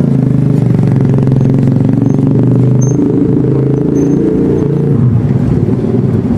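A vehicle engine running close by, a steady low hum whose pitch shifts about three seconds in and again about five seconds in.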